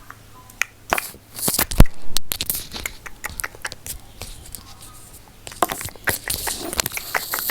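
Close-miked ASMR trigger sounds: a quick, irregular string of clicks, crackles and scratchy rustles, with a hard thump against the microphone just under two seconds in.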